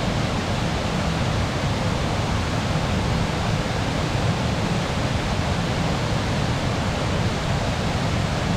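Waterfall: the steady, unbroken rush of falling water, with a full low rumble under a hiss.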